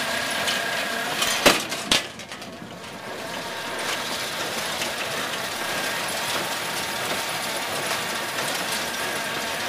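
Welger baler and its towed bale sledge running: a steady mechanical run with light clinking and rattling, broken by two loud clanks about a second and a half and two seconds in.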